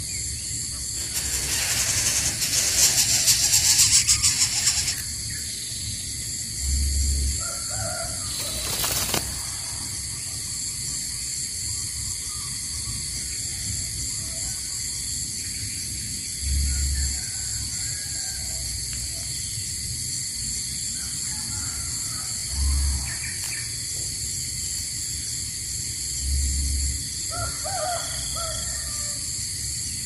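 Steady high-pitched insect drone, with a loud rasping hiss lasting about four seconds near the start and a short burst of noise a few seconds later. Soft low thumps and a few faint short calls come at intervals.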